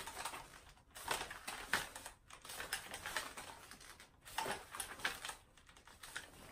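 Faint handling noise of a Howa Type 89 rifle being switched to the other shoulder: small clicks and knocks of the rifle with rustling of clothing and gear, in several short clusters with pauses between them.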